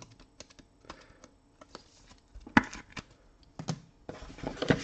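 Scattered light clicks and taps of small objects being handled, with sharper knocks about two and a half seconds in and a quick cluster of knocks near the end.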